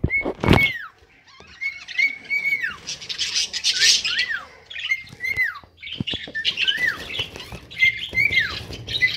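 Caged birds calling over and over: whistled calls that hold one pitch and then slide down, about ten of them, with some chattering between. A loud knock sounds near the start.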